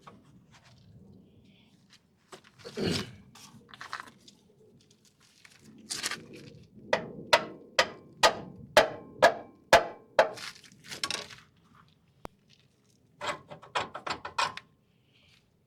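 Hammer blows on the steel front suspension parts of a GM Express van: a single heavy knock, then a run of about ten sharp, ringing strikes roughly two a second, and near the end a quicker burst of about six lighter blows.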